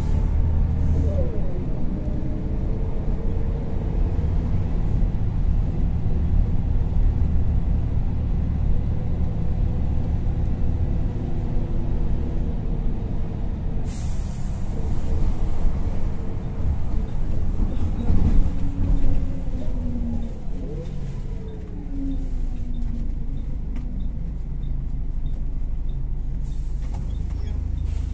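Volvo B10BLE single-deck bus heard from inside the saloon: the diesel engine drones steadily with a whine that glides up and down as it pulls. About halfway through, a sharp hiss of compressed air is released from the air brakes. Near the end the engine drops to a steady idle as the bus comes to a stand.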